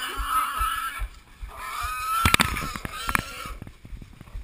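Wild boar squealing in two long high-pitched squeals while pinned by the dogs and hunters: distress cries of a caught pig. Sharp crackles of brush and scuffling break in about two and three seconds in.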